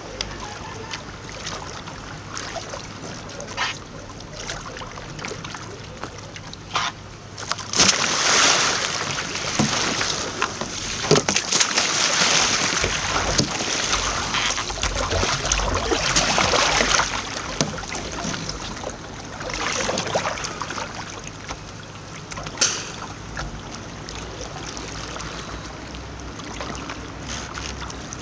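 Sea kayak being rolled: water splashing and sloshing around the hull, paddle and paddler as the boat capsizes and comes back upright, loud for about ten seconds from around eight seconds in, with a shorter splash later and one sharp knock. Quieter lapping and paddle drips before and after.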